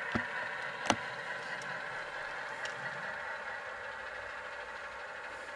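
Model diesel locomotive's Tsunami sound decoder playing a diesel engine running steadily at low throttle through the model's small speaker, with little bass. A sharp click sounds about a second in.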